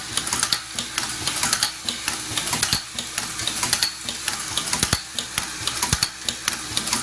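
Zipper slider mounting machine running: rapid, irregular metallic clicking and clattering, with metal sliders rattling in its vibratory feeder, over a faint steady hum.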